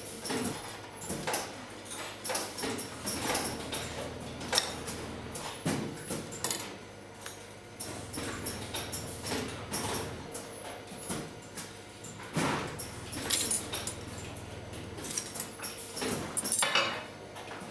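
Irregular light clicks and taps of thin brass strips and small tools being handled and set down on a wooden workbench, with a faint low hum coming and going underneath.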